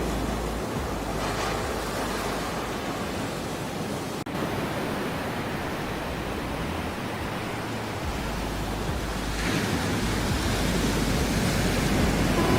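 Ocean surf: a steady wash of waves with swells that build about a second in and again near the end. There is a very short dropout about four seconds in.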